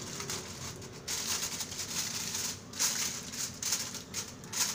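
Aluminium foil crinkling in irregular bursts as hands press and crimp it over the rim of a dish.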